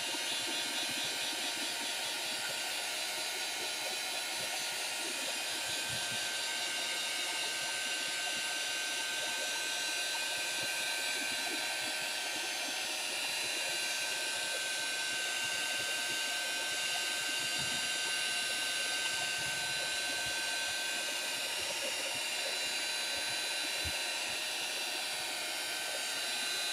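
Handheld heat tool running steadily: a constant hiss of blown air with a thin motor whine, drying wet paint on paper.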